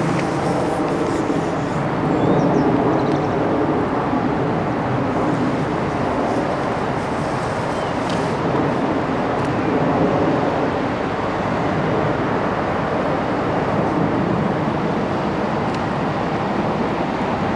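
Steady rushing background noise with no clear pitch, with a few faint, brief high chirps.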